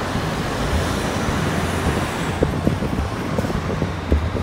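Urban street traffic noise: a steady hiss and low rumble of road traffic, with a few short low knocks in the second half.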